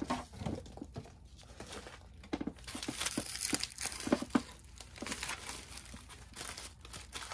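Plastic bubble wrap and foil thermal wrap crinkling and rustling as they are handled, in irregular bursts with scattered light clicks, busier from a couple of seconds in.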